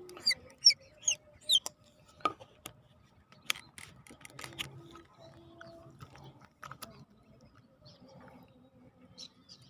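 Small bird chirping: four quick, high, falling calls in the first two seconds, then a few more near the end, among scattered light clicks.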